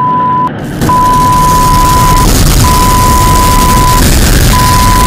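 Loud electronic 'space sound': a steady high beep tone in long pulses of about a second and a half with short gaps. Just under a second in, a harsh wall of static noise comes in under it.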